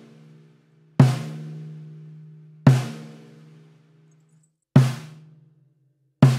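Single snare drum hits, about one every one and a half seconds, four in all. The first two ring on with a long, low humming overtone, the unwanted snare ring. The later two, struck with a beaded chain resting on the batter head as a damper, die away noticeably faster.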